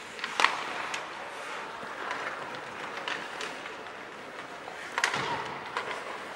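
Ice hockey play on the rink: sharp knocks of sticks and puck, the loudest about half a second in and another at about five seconds, over a steady haze of skating and rink noise.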